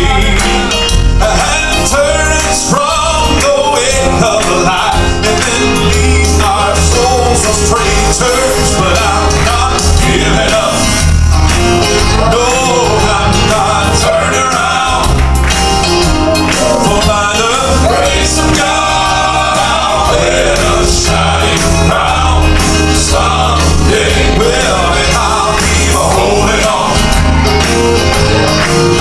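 Southern gospel male quartet singing in harmony into microphones, with piano accompaniment and a deep bass line underneath.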